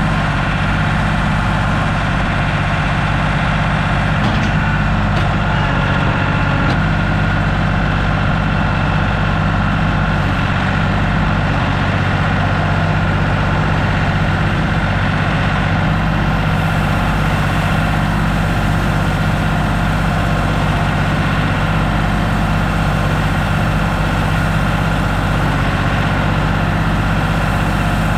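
Heavy engine of paving machinery running at a steady idle, a constant low hum with no change in speed.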